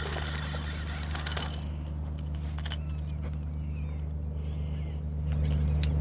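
Seabirds from a large feeding flock calling faintly in short chirps over the water, over a steady low hum. In the first second and a half there is a scatter of clicks and splashy noise as a small white trout is reeled in and landed.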